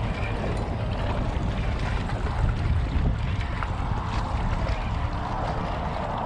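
Wind buffeting the microphone, a steady low rumble, over small waves washing against shoreline rocks.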